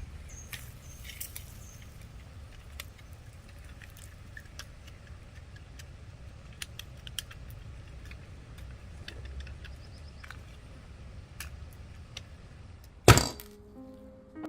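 Scattered light clinks and taps over a low steady rumble, then one loud bang with a short ring about a second before the end.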